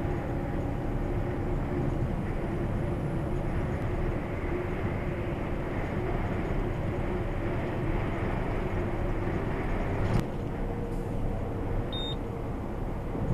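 Steady drone of a truck's engine and tyres heard inside the cab at motorway speed. There is a sharp click about ten seconds in, where the sound shifts slightly, and a short high beep a couple of seconds later.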